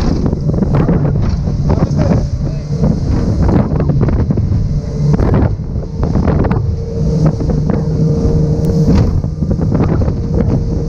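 Boat engine running steadily, with wind buffeting the microphone.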